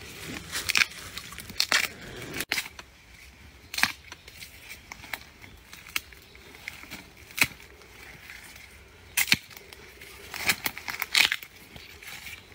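Thin water bamboo shoots snapping off with sharp cracks as they are pulled up by hand, a series of single snaps spaced irregularly.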